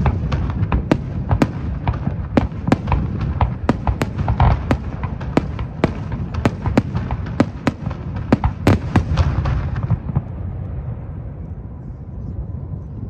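Fireworks display: aerial shells bursting in quick succession, several sharp bangs a second over a low rumble. The bangs stop about ten seconds in, leaving only a low steady noise.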